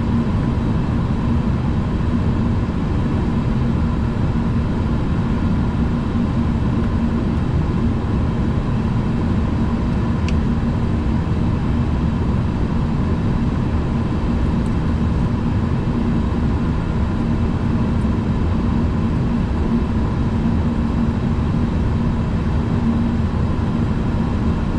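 Steady flight-deck noise of an Airbus A340-300 on final approach: a constant rush of airflow and engine hum, heaviest in the low end, with a faint steady tone above it.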